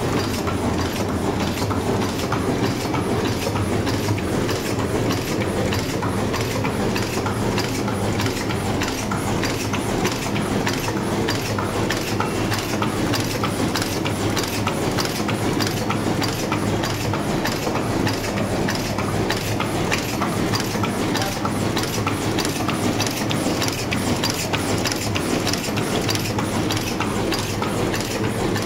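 High-speed paper cup making machine running, its turret and forming stations cycling with a steady rhythmic mechanical clatter, a few strokes a second.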